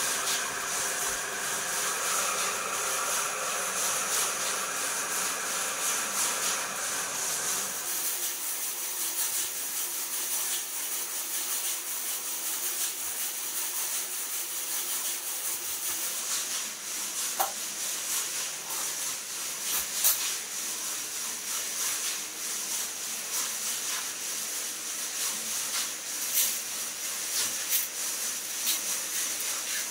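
Centrifugal spin dryer whirling a perforated basket of bolts: a steady machine whine over a hiss, which stops abruptly about eight seconds in. Later come scattered metallic clinks as the basket and bolts are handled.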